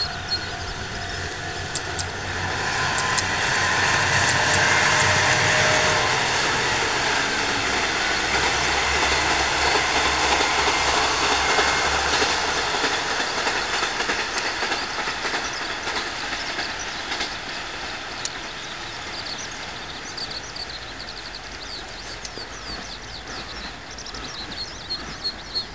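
Shimabara Railway diesel railcar train passing, its engines and wheels on the track swelling up about two seconds in, loudest for several seconds, then slowly fading as it moves away.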